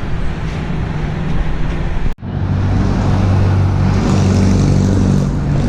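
Motor vehicle engine running with a steady hum and road noise. The sound cuts out abruptly for a moment about two seconds in, then the engine hum comes back louder.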